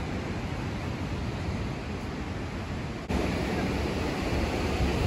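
Ocean surf washing on a rocky shoreline, a steady rush of noise with wind rumbling on the microphone. It gets louder and fuller about three seconds in.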